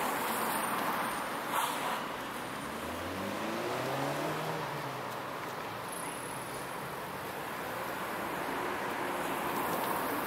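City street traffic: cars passing with a steady hiss of road noise, one engine note rising and then falling as a vehicle goes by a few seconds in. A single sharp knock about a second and a half in.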